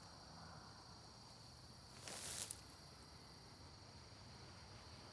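A single short puff of breath about two seconds in, blowing on a smoking grass tinder bundle to coax a hand-drill ember into flame. Under it, a faint steady high insect drone.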